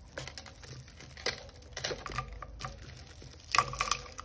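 Tangled costume-jewellery necklaces, metal chains with glass and plastic beads, clicking and rattling against each other as they are lifted and pulled apart by hand. The clicks are scattered and irregular, with the loudest cluster near the end.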